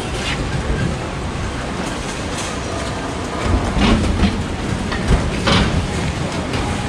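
Steady rumble and hiss of heavy rain over the covered market street, with metal stall carts being wheeled and clanking sharply about four and five and a half seconds in.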